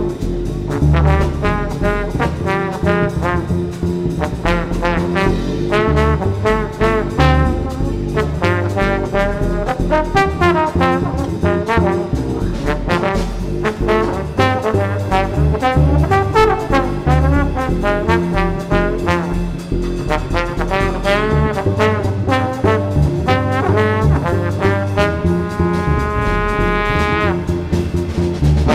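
Live small-group jazz: a trombone plays a flowing solo line over walking double bass and drums, settling on a long held note near the end.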